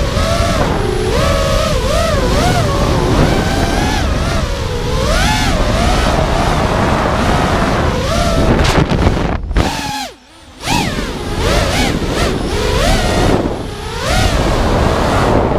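Racing quadcopter's brushless motors (T-Motor F40 2400KV) and 5-inch three-blade propellers whining, the pitch rising and falling constantly with the throttle, over a low rush of air on the onboard camera. About ten seconds in, the throttle is cut and the sound drops away for under a second before the motors spool back up.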